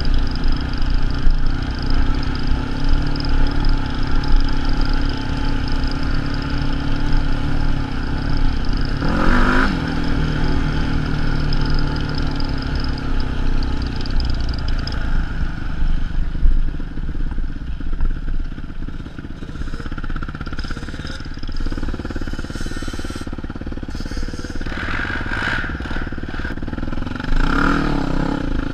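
Sport quad (ATV) engine running along a dirt trail at a fairly steady pitch. The revs rise sharply about nine seconds in, and there is more revving with some clatter near the end.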